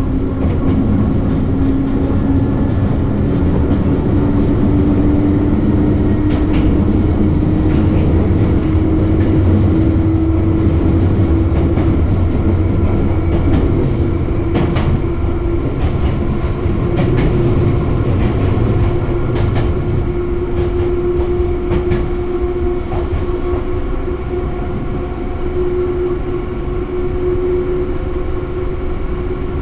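Hankyu electric train running along the line, heard from the driver's cab: a steady rumble with a hum that slowly rises in pitch as it picks up speed, and wheels clicking over rail joints now and then.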